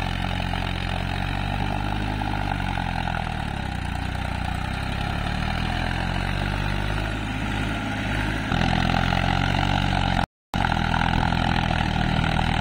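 Massey Ferguson 290 tractor's diesel engine running under load as the tractor churns through a flooded paddy on cage wheels. The engine note rises and falls as it pulls. The sound changes abruptly about two-thirds of the way through and cuts out very briefly near the end.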